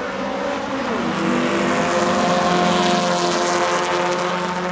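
Drag car's engine at full throttle on a pass down the strip. Its note drops sharply about a second in, as at an upshift, then climbs steadily and grows louder before easing off.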